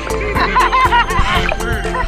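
Background music with a steady beat, with a short burst of laughter over it from about half a second in to about a second and a half in.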